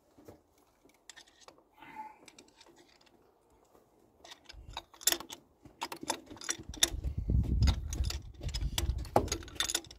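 Ratchet handle clicking as it works a spark plug loose through an extension and socket. A few faint clicks at first, then quick runs of sharp clicks from about halfway, with a low rumble underneath near the end. The plug is coming out normally, without much effort.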